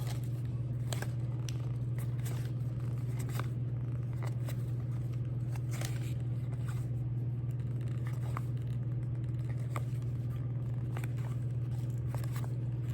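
Trading cards being handled and slid through a freshly opened pack, faint scattered ticks and scrapes over a steady low hum.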